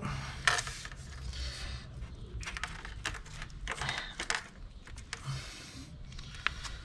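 Carbon-fibre Mivv silencer being pushed by hand onto the exhaust link pipe: irregular metal scrapes and light clicks as the slip joint is worked home.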